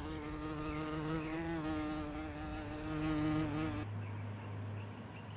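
A flying insect buzzing steadily with a slightly wavering pitch, cutting off abruptly about four seconds in. After that only a faint low hum remains.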